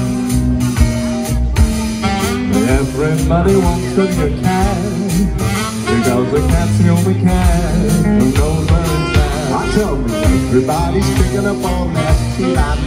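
Live swing band music: drums keep a steady beat under a moving bass line and a lead melody.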